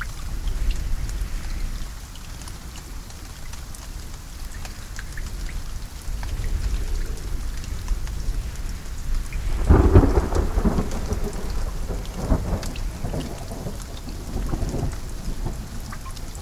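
Steady rain falling, with a low rumble underneath and a loud thunderclap about ten seconds in that rolls on for several seconds.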